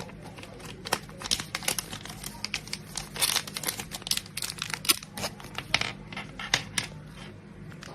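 Plastic packaging crinkling as it is handled, in many quick, irregular crackles.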